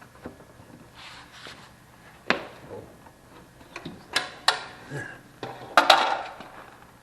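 Irregular knocks and clatter of hard objects being handled during hands-on work, a few sharp ones, with the loudest cluster about six seconds in.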